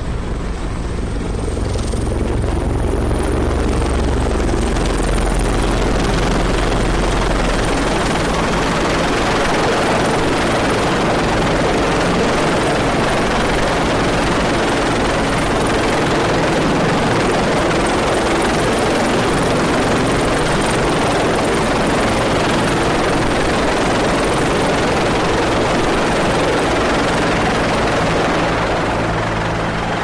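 Helicopter hovering close overhead: a loud, steady rush of rotor noise that swells about two seconds in and eases off near the end.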